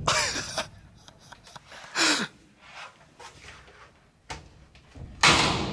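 Three short, breathy hoots from a wooden organ pipe blown by mouth, near the start, about two seconds in and about five seconds in, the pitch sagging as the breath runs out.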